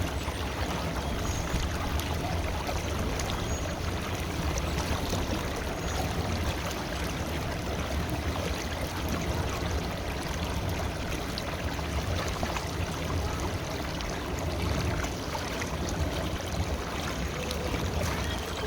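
River water flowing: a steady, even rush of running water, heaviest in the low range.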